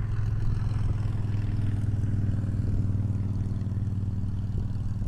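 A steady low mechanical hum, an unbroken drone with a strong low pitch and overtones, holding level throughout.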